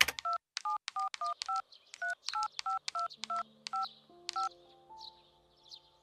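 Mobile phone keypad tones as a text message is typed: about fifteen short two-tone key beeps, each with a click, at an uneven typing pace over the first four and a half seconds. Soft held musical notes come in underneath from about halfway and carry on after the beeps stop.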